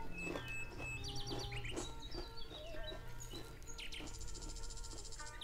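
Bird-like chirping in short, quick trills, over a bed of steady held tones.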